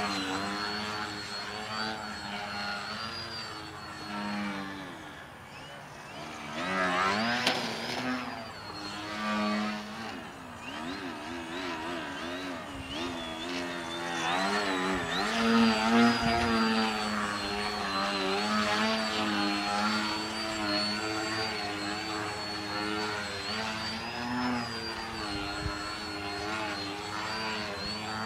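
Electric motor and propeller of a small foam 3D RC plane (Twisted Hobbys Crack Yak) whining as it hovers and manoeuvres. The pitch rises and falls over and over with the throttle, over a thin steady high whine.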